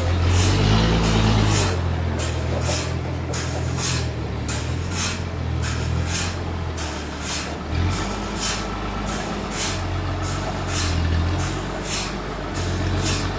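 Sawmill engine running steadily with a low drone that lifts briefly about a second in, over a rhythmic hiss that pulses about twice a second.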